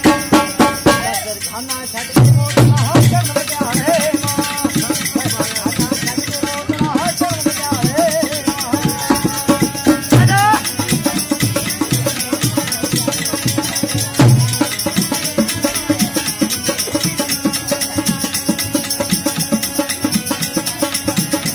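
Live folk music: fast, steady jingling percussion throughout, a rope-tensioned drum beating out heavy low strokes that are loudest about two, ten and fourteen seconds in, and a wavering melody above.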